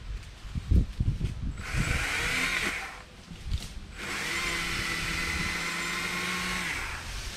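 STIHL MSA 160C battery-powered chainsaw running in two bursts as it cuts brush and small trees: a short one about one and a half seconds in, and a longer one of about three seconds from about four seconds in. Its electric motor gives a steady whine with no engine note. A few low thumps come before the first burst.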